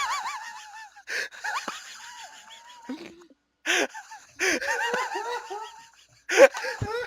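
Wheezing laughter: runs of high, squeaky pulses broken by sharp, noisy gasps for breath, several times over.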